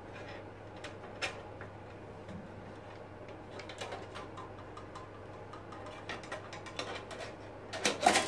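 Scattered light clicks and metallic taps of a bandsaw blade being handled and worked into the blade guides and bearings, with a louder cluster of knocks near the end.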